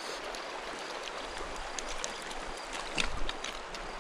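River water rushing steadily over a riffle, with a short cluster of sharp splashy sounds about three seconds in.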